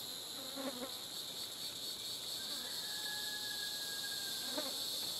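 A steady, high-pitched insect chorus. About halfway through, a faint thin whistle holds one pitch for about two seconds.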